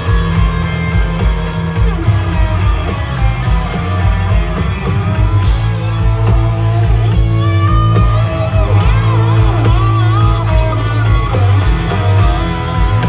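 Live country-rock band playing an instrumental passage, with drums and bass pulsing steadily under an electric guitar lead that bends its notes up and down in the second half.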